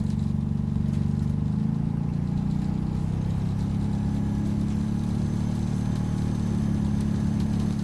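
Optare Solo bus's diesel engine running steadily, heard from on board, its note shifting in pitch about a second and a half in.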